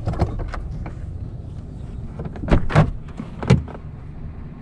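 Steady low engine and road noise inside a pickup truck's cab on a gravel road, with several sharp knocks and clunks in the cab. The loudest come about two and a half and three and a half seconds in.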